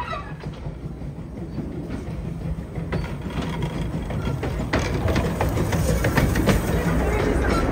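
Narrow-gauge steam locomotive and its passenger carriages rolling past close by: a low rumble that grows steadily louder, with sharp clicks from the wheels on the track from about three seconds in.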